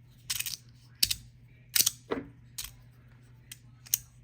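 Aurora EDC Mini Netrino magnetic fidget slider clicking as its plates are flicked back and forth, snapping into place: about six sharp, irregular clicks, one roughly every half second to second.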